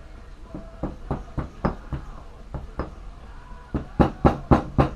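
Sharp knocks and taps on a workbench while a CV joint boot is seated on an ATV front axle: a few scattered taps, then a quick run of about six louder knocks near the end.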